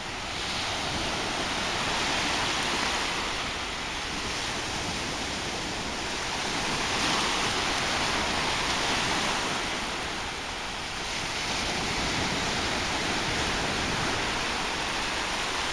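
Small waves washing up on a sandy beach: a steady rush of surf that swells and eases every few seconds.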